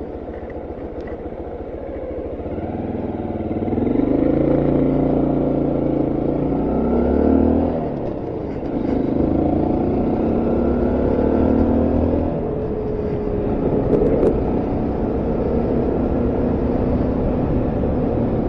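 Honda Monkey 125's small single-cylinder engine pulling away and accelerating, with a break in the pull about eight seconds in as it shifts gear, then running steadily at cruising speed.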